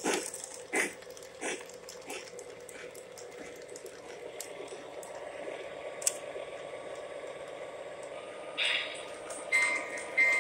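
O gauge Lionel model trains rolling on three-rail track with a steady rumble of wheels. Sharp, evenly spaced pulses come in the first couple of seconds, and a few short high tones sound near the end.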